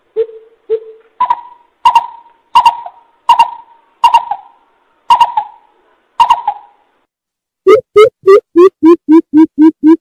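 Coucal calling: two low hoots, then seven louder, higher hooting notes less than a second apart, and near the end a fast run of deep hoots about five a second. The recording is very loud.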